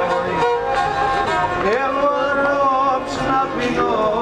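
Pontic lyra (kemençe), a small upright bowed fiddle, playing a folk melody of held notes, with a rising slide about one and a half seconds in.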